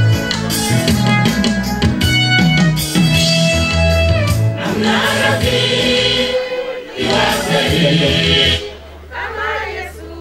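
A women's choir sings a gospel song over amplified instrumental backing with a heavy bass. About three-quarters of the way through the backing drops out, and only quieter voices are left.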